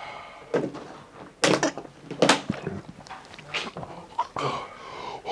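Clip-lock plastic food container being opened: several sharp plastic clacks and knocks as the lid's clips snap and the lid comes off. A short vocal sound from one of the men near the end.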